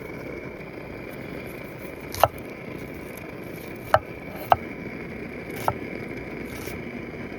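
Wood fire burning, with four sharp pops from the burning wood over a steady low rumble.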